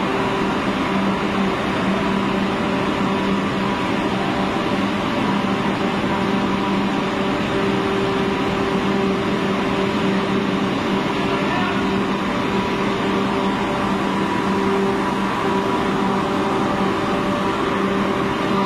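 Steady mechanical drone with a low, even hum: the background noise of an underground metro tunnel.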